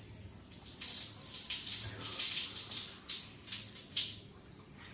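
Overhead shower running, its spray splashing onto a person's head and body; the splashing swells and falls unevenly as he rinses his hair.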